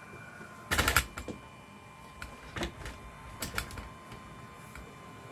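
Clicks and taps of small tools and parts being handled on a phone-repair bench: a quick loud cluster about a second in, then scattered single taps through the middle, over a faint steady high whine.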